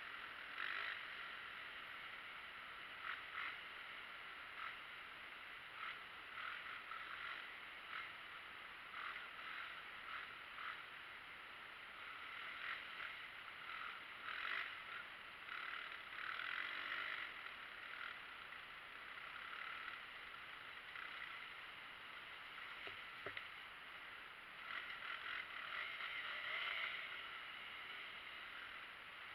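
Muffled riding noise of a dirt bike on a muddy trail: a steady hiss that swells and eases every second or two, with no clear engine note.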